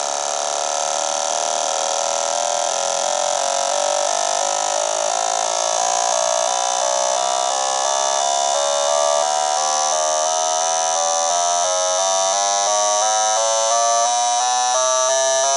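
Fuel injector test and cleaning machine running a flow test, the injectors pulsing with a steady buzz whose tone changes in regular steps and rises slowly in pitch.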